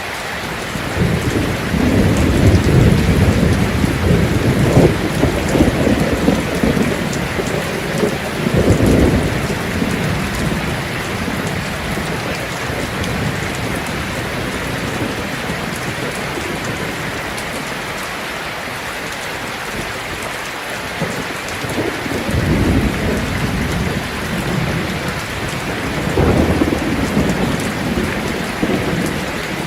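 Heavy rain falling steadily on a tin roof, with rolls of thunder rumbling: a long one starting about a second in, a shorter one around nine seconds, and two more in the last third.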